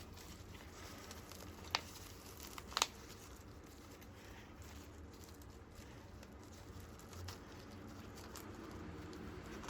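Faint crinkling and rustling as the soil and roots of a root-bound pothos are handled during repotting, with two sharp clicks about two and three seconds in.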